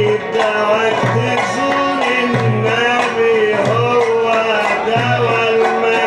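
Live Egyptian Sufi devotional music: a sustained, wavering melody over a low drum stroke about every second and a quarter, with the jingles of a riq tambourine.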